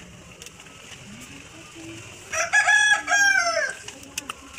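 A rooster crowing once, about one and a half seconds long, starting about halfway through and falling in pitch at the end.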